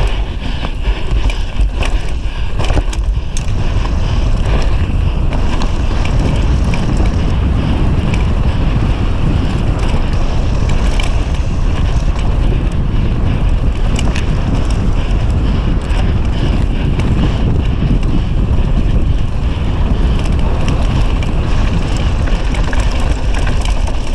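Steady wind rush and low rumble buffeting an action camera's microphone on a downhill mountain bike descending at speed, with the knobby tyres rolling over dry dirt. Scattered sharp clicks and rattles from the bike come through the noise.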